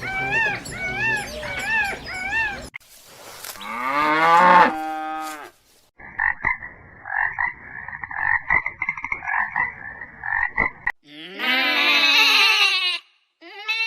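Different animal calls one after another. First comes a quick series of short calls that rise and fall in pitch. Then a single call sliding down in pitch, a pulsing buzz lasting about five seconds, and near the end a drawn-out call falling in pitch.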